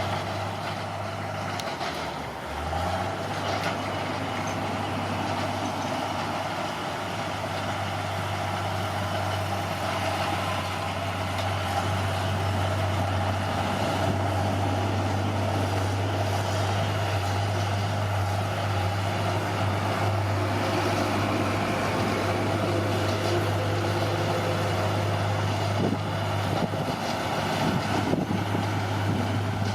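Bulldozer's diesel engine running steadily under work, its note dipping briefly about two and a half seconds in.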